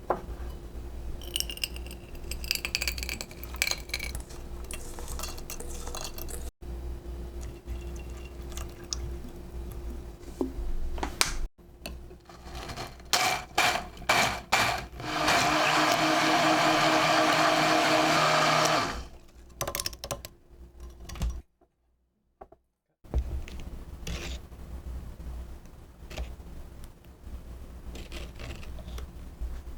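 Kitchen work in short cuts: utensils and dishes clinking and clattering, then a blender motor running steadily for about four seconds, the loudest sound here.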